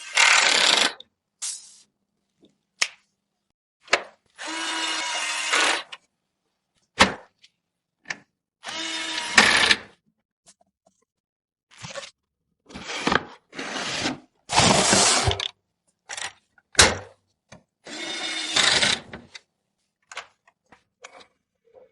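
Short runs of a small power tool, about a second each and five in all, between sharp clicks and taps of parts being handled and fitted.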